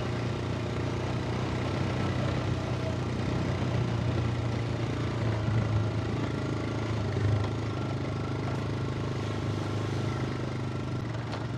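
Motorcycle engine running steadily at an even pitch, with no revving.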